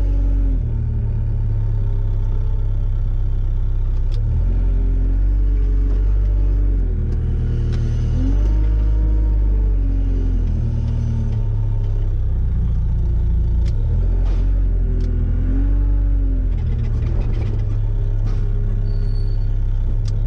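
Wheel loader's engine and hydraulics heard from inside the cab, running steadily with a low rumble and revving up and down in repeated swells as the loader works a round-bale grab.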